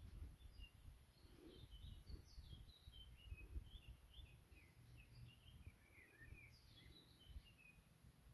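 Near silence with faint birdsong: a steady run of quick, high chirps and short trills. A soft low rumble sits underneath.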